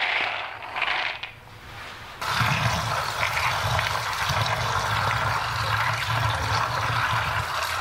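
Dried cowpea seeds rattling as they are tipped from a steel bowl into a plastic basin. About two seconds in, a tap starts running steadily into the basin while hands swish and rub the seeds in the water to wash them.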